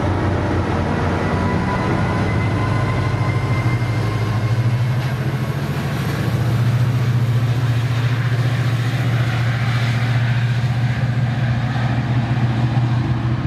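MARC MP36PH-3S diesel locomotive running, with a steady low engine drone and rail noise from the commuter train moving through the station. A faint thin whine sounds over the first few seconds.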